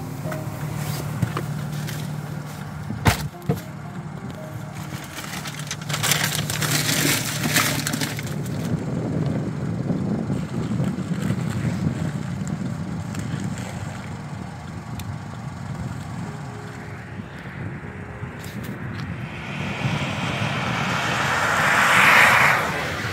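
Open-air roadside ambience with a steady low hum and a single sharp knock about three seconds in. Near the end a pickup truck approaches on a wet road and passes close by, its tyre hiss swelling to the loudest sound and then falling away quickly.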